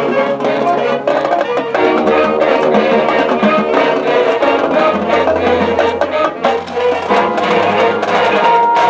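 Marching band playing: brass and woodwinds hold chords over quick, steady percussion strikes from the drumline and front ensemble.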